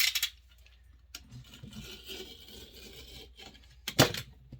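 Old duct tape being picked and peeled off a wooden axe handle: soft scratchy rubbing, with a sharp noise right at the start and a louder one about four seconds in.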